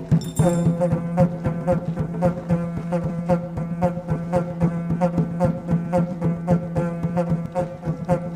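Music: a steady low drone under a repeating pitched melody, driven by quick, even percussive strikes at about four or five a second.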